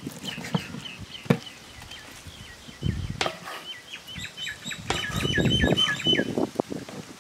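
A small bird calling a series of short, falling chirps that quicken to about seven a second midway. Beneath them are low knocks and clatter, with one sharp knock about a second in.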